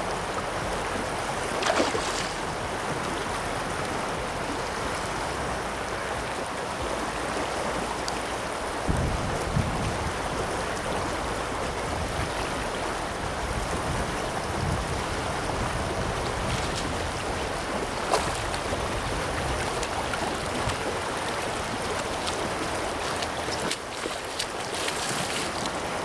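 Steady rush of a shallow river running over gravel, with a few short knocks and a low rumble for several seconds near the middle.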